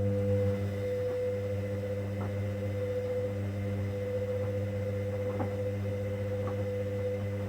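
Hoover Dynamic Next washing machine's drum motor running steadily during a 90 °C cotton main wash, a pitched motor hum and whine turning the drum, with faint light ticks about once a second from the tumbling load.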